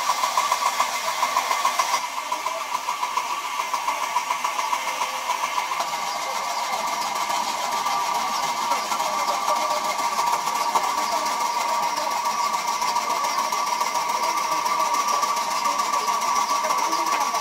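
Large sawmill band saw running with a steady whine and a fine, rapid flutter.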